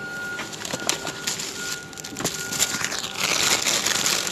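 Plastic bags and wrapped food crinkling and rustling as hands rummage through a bin, with scattered clicks. It gets loudest near the end as a bag is grabbed. A faint high beep repeats steadily in the background.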